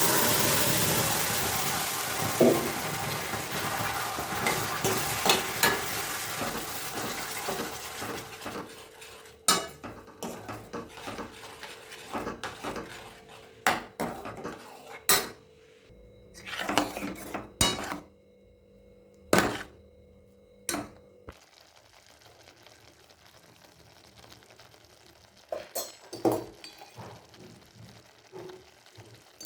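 Food sizzling loudly in a hot pan from a sudden start, fading over the first several seconds, then a spoon or spatula clinking and scraping against the pan as the gravy is stirred, with sporadic knocks that thin out near the end.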